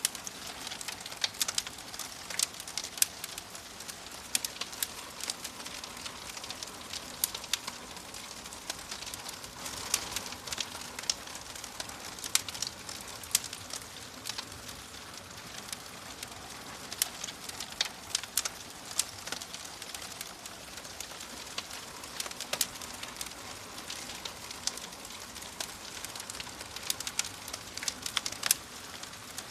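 Wood fire in a fireplace crackling: a steady hiss broken by many irregular sharp pops and snaps, several a second.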